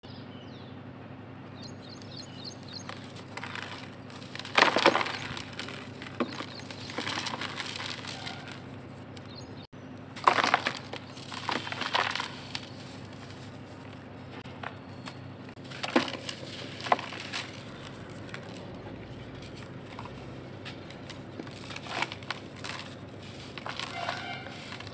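Dry, dusty charcoal balls crunching and crumbling as they are squeezed apart by hand. The crunching comes in short bursts every few seconds, loudest about five, ten and sixteen seconds in.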